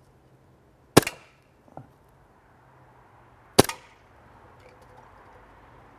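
Umarex Luger P08 CO2 BB pistol firing two shots about two and a half seconds apart, each a sharp crack with a short tail. A faint tick follows the first shot.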